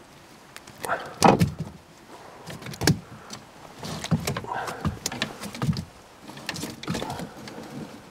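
Irregular knocks, clunks and scrapes of fishing rods and tackle being handled in a canoe, knocking against the hull. The two loudest knocks come about a second in and just before three seconds.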